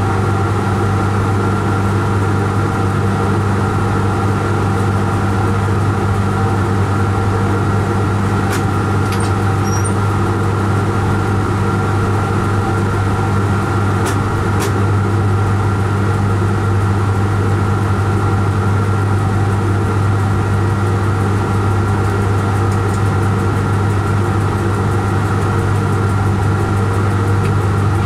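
Steady low hum and drone of a locomotive heard from inside its cab as the train runs along the line. A couple of short sharp clicks come about a third of the way and halfway through.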